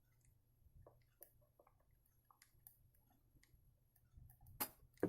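Near silence with scattered faint ticks and clicks from small objects being handled at a workbench, and two louder clicks near the end.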